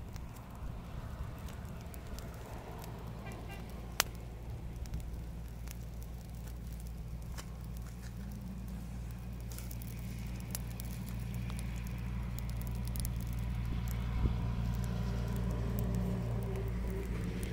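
Small fire of dry twigs crackling, with scattered sharp snaps, over a steady low drone that grows gradually louder.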